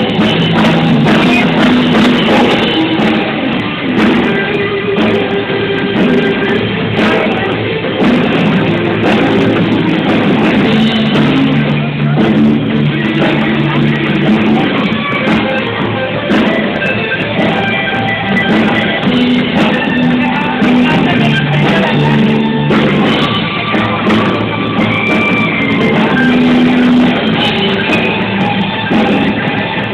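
A live rock band playing at a sound check, with guitar and drum kit and some singing, recorded with poor, muffled audio.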